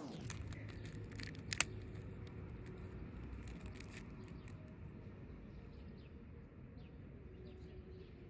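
Quiet room noise with a low hum and a few faint clicks and taps, one a little sharper about a second and a half in, from trading cards being handled.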